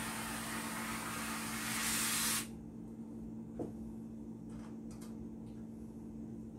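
Aerosol can of ready-made ginger foam spraying onto a drink: a hiss that grows louder and cuts off suddenly about two and a half seconds in. A single light knock follows about a second later.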